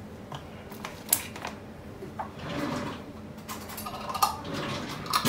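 Light clicks and knocks of kitchen containers being handled, spice jars and lids being picked up and set down on the counter, with a short rustle about halfway through.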